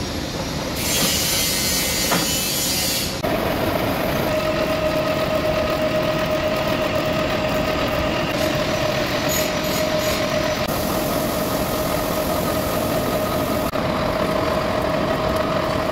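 Metal lathe turning a solid iron bar held in a four-jaw chuck, the tool cutting and peeling off curled chips, over the lathe's steady running noise. From about three seconds in, a steady whining tone from the cut rides on top.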